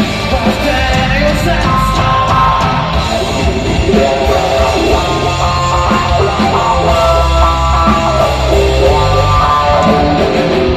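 Rock band playing live: guitars and bass at full volume, with some singing.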